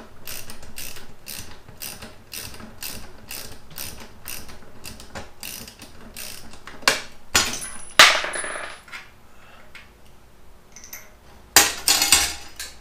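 Ratchet wrench clicking in a steady rhythm, about twice a second, while loosening the bolts of an old garage door opener's ceiling mount. In the second half come a few loud metal clanks and rattles as the opener unit is worked free.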